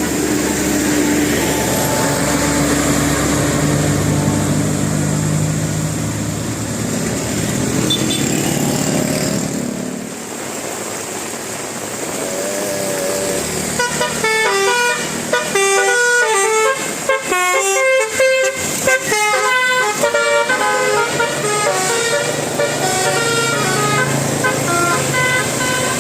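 Basuri telolet air horn playing a fast melody of short stepped notes, from about halfway through. Before that, a vehicle engine runs with a haze of road noise and a few held horn tones.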